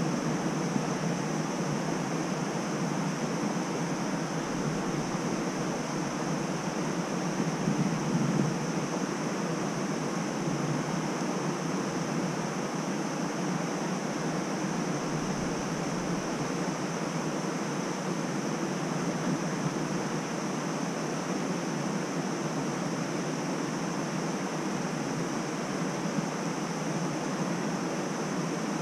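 Steady outdoor background rush, an even noise with no distinct events, plus a faint steady high hiss.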